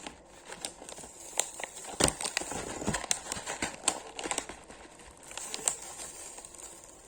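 Toy packaging wrapper being crinkled and pulled open by hand, a run of small sharp crackles and rustles that thins out near the end.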